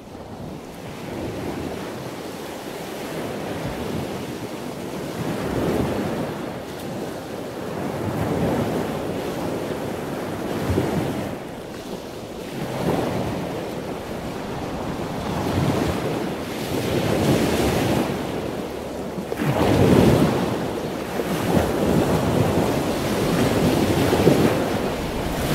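Ocean surf: waves washing in and drawing back, swelling and falling every two to three seconds.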